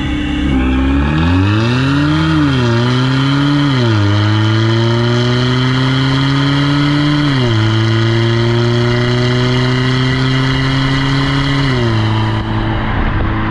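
Modified exhaust of a VW Tiguan 2.0 TDI diesel with a DSG gearbox, accelerating hard. The engine note climbs in pitch and drops sharply about four times as the gearbox shifts up, then holds steady near the end.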